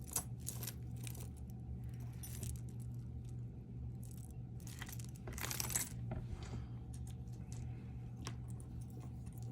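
Costume jewelry necklaces jingling and clinking as they are handled, with scattered light clicks and a brief denser rattle about five and a half seconds in, over a steady low hum.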